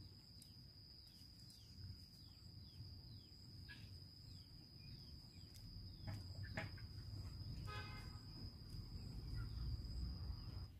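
Faint rural outdoor ambience: a steady high-pitched insect drone with scattered short falling bird chirps and a low rumble that grows louder after about six seconds.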